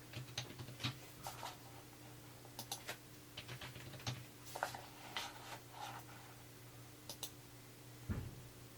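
Computer keyboard being typed on, with irregular, scattered key clicks as a PIN is entered, over a faint, steady low hum.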